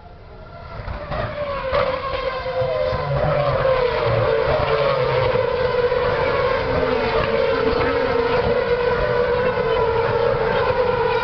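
Formula 1 race car engine at very high revs, swelling in over the first few seconds with a few pitch glides, then held at a steady high-pitched scream.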